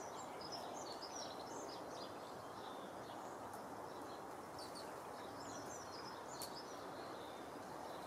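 Small songbirds twittering in short, high chirps that come in several clusters, over a steady low background hiss.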